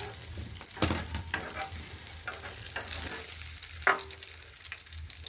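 Battered pollack fillets frying in hot oil in a pan, a steady sizzle with a couple of sharper crackles.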